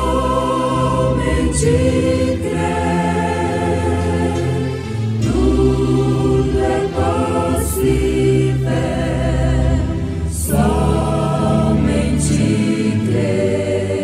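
A choir singing a slow gospel hymn in long held chords that change every couple of seconds, over instrumental backing.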